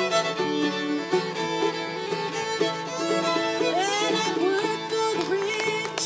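Acoustic string band playing an instrumental passage: a bowed fiddle carries the melody, with sliding notes about halfway through, over a strummed acoustic guitar and a mandolin.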